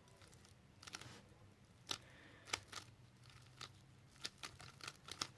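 Megaminx being turned by hand: faint, irregular plastic clicks as its faces snap round, a few at first and coming more quickly in the last second or so.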